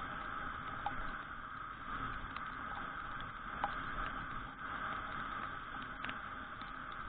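Muffled, steady road and wind hiss of a Suzuki Address V125G scooter riding in the rain, picked up inside an all-weather action camera's case. A few light ticks of raindrops hit the camera, the sharpest about three and a half seconds in.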